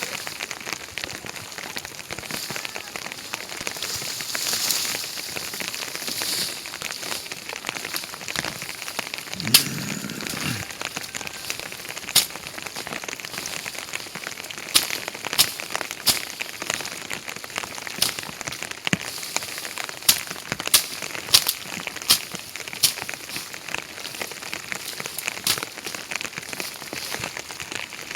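Heavy rain falling: a steady hiss with many sharp drop impacts, the louder ones coming every second or so in the second half. A brief low sound about ten seconds in.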